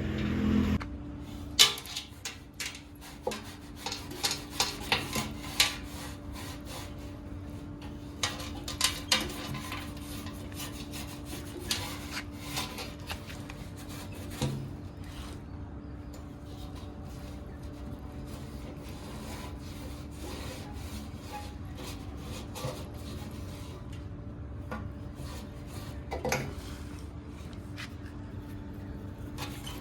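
Metal being scraped and tapped with a hand tool in irregular bursts of short strokes, most frequent in the first third, over a steady low hum.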